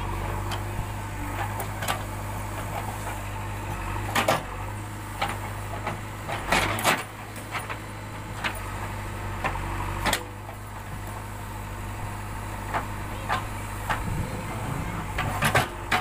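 JCB 3DX backhoe loader's diesel engine running steadily as the backhoe digs soil, its note dipping briefly about halfway through. Several sharp knocks and clanks from the bucket and boom stand out over it.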